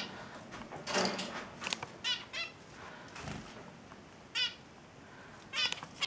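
Zebra finches calling: short chirps repeated in small clusters a few times over several seconds.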